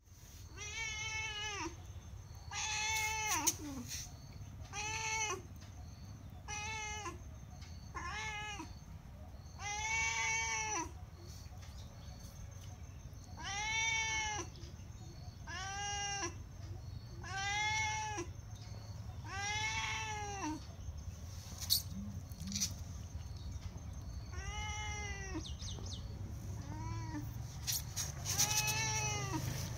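Domestic cat meowing over and over, about a dozen drawn-out meows roughly two seconds apart, each rising then falling in pitch, with a short pause about two-thirds of the way through: persistent begging for food.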